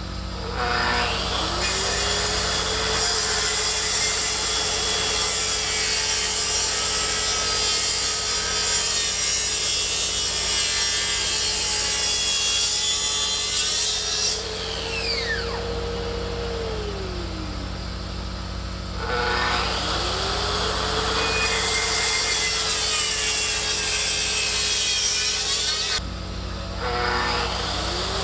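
Track saw running along its guide rail, cutting through a thick live oak slab. It starts up, cuts steadily for about 13 seconds and winds down with a falling whine, then starts again for a second run of about 7 seconds, stops, and starts once more near the end.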